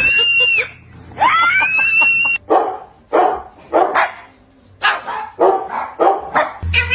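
A pet bird whistling twice, each whistle rising and then held, then mimicking a dog with a string of short barks.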